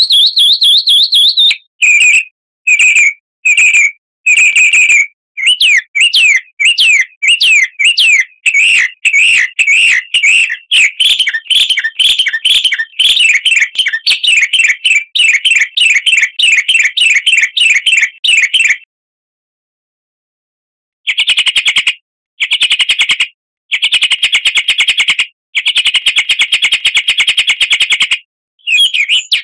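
Songbird song from a recorded pancingan (a bird-song lure used to get caged songbirds singing): loud, fast, repeated high chirping notes. It starts in short separate phrases, then runs on as a quick continuous series. After a two-second break about two-thirds of the way in, it comes back as dense, buzzy trills in bursts.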